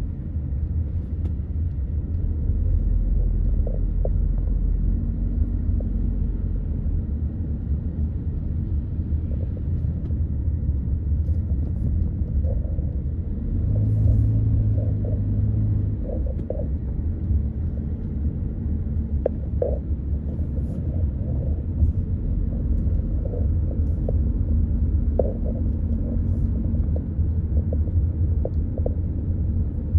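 Steady low road and engine rumble of a car driving slowly, heard from inside the cabin. A motor scooter's engine hum joins briefly about halfway through as it passes alongside.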